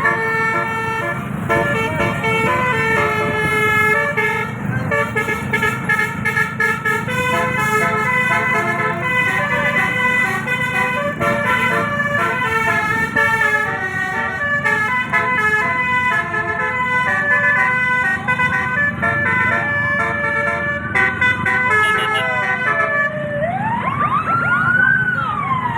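Telolet bus horn, a roof-mounted array of 18 air trumpets, playing a quick tune of stepping multi-tone chords over a low rumble. Near the end it switches to a siren-like wail that rises and falls in pitch.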